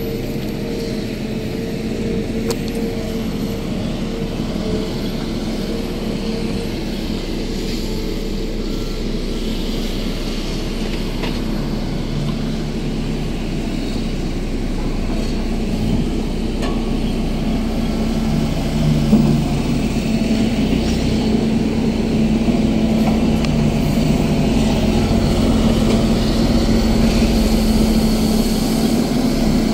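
Excavator's diesel engine running steadily under work, with a held hum that grows louder over the second half.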